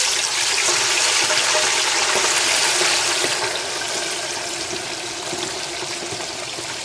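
Hot oil in a deep fryer sizzling hard around a fresh batch of raw chicken wings, a steady hiss that eases off a little after about three seconds.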